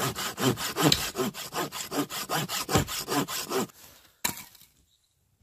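Hand saw cutting through a dead log with quick, even back-and-forth strokes, about three a second. The sawing stops after about three and a half seconds, with one short sound a moment later.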